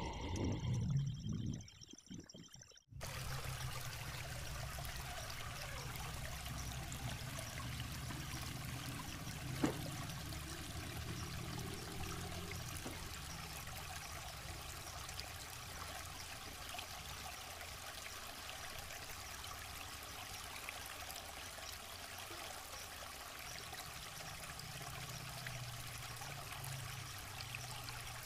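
Steady rush of a rocky river running over stones, with a single sharp click about ten seconds in. A hum fades out in the first two seconds before the water sound sets in.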